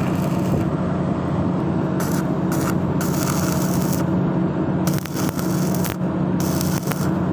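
Electric arc welding on a pipe: a steady crackling, sputtering hiss over a low, even hum, with the high hiss coming and going every second or so.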